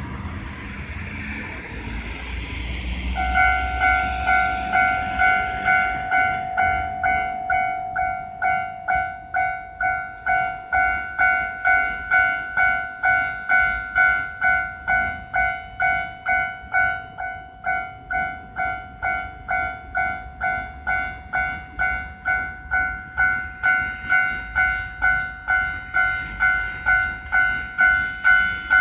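A Japanese level-crossing warning bell starts ringing about three seconds in, an electronic two-tone clang repeating evenly about twice a second. Before it, a rushing noise with a low rumble.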